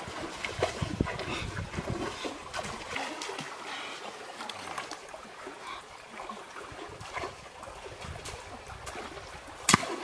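Water splashing and trickling, with scattered small knocks and clicks and one sharp click near the end.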